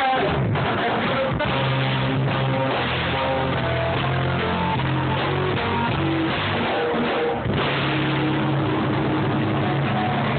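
A live rock band playing an instrumental passage: electric guitar and electric bass over a drum kit.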